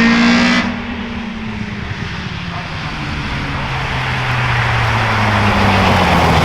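Race car engine passing at speed, its note dropping away abruptly just under a second in; then another race car's engine comes in, growing steadily louder as it approaches.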